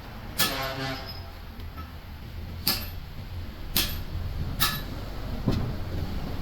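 Sharp metallic knocks of tools and metal parts striking, five in all, the first ringing on for about half a second, over a steady low hum.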